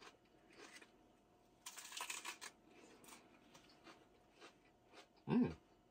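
Crisp romaine lettuce wraps being bitten and chewed: short crackly crunches, the loudest about two seconds in.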